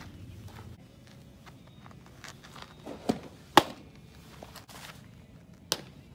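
A pitched softball smacks into the catcher's mitt with one sharp pop about three and a half seconds in. Lighter knocks come just before it and again near the end.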